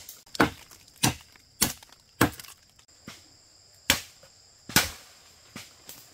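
Repeated sharp blows of a hand tool striking wood, about ten strikes at an uneven pace of roughly one every half second to a second. A steady high insect chorus runs underneath.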